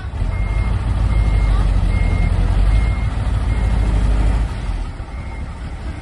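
Dump truck reversing: its reversing alarm beeps steadily, about one beep a second, over the heavy engine, which is working hard and then eases off about four and a half seconds in.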